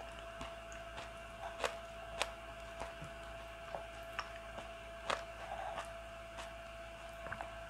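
Wooden spoon stirring thick bean sprout and carrot rice porridge in a bowl: irregular soft clicks and taps of the spoon against the bowl, over a faint steady tone.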